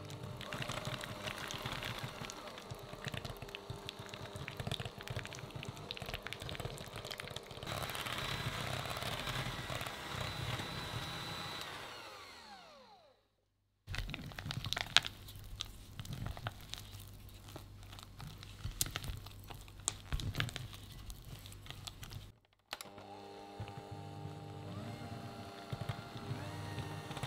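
Electric hand mixer beating softened butter in a glass bowl, its motor running steadily and then winding down with a falling whine about halfway through. A silicone spatula then scrapes around the glass bowl with scattered clicks and knocks, and the mixer starts up again near the end.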